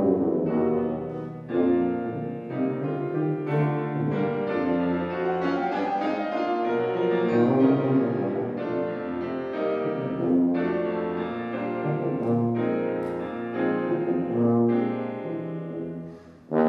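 Tuba and grand piano playing a classical duet together, the tuba holding sustained notes over the piano's chords. The music thins out briefly near the end.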